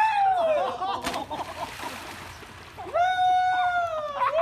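A high shout, then a child hitting the water of a swimming pool with a splash about a second in, followed by water noise. Near the end, a long, high yell.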